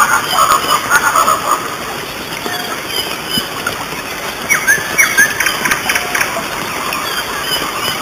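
Steady rush of water, with short rising chirps over it about halfway through.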